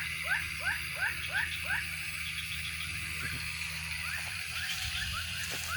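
An animal calling in a run of short rising chirps, about three a second, over a steady high hiss. The chirps die away after about two seconds and return more faintly near the end.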